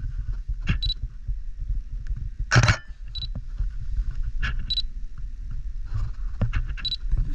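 Camera shutter firing once with a sharp clack about two and a half seconds in, with a fainter click later. Short high electronic beeps from the camera come four times. A steady low rumble runs underneath.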